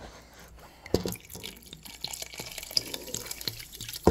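Sparkling mineral water poured from a bottle into a large pot of kefir-based okroshka, splashing and fizzing steadily into the soup. A single knock about a second in, just before the pouring starts.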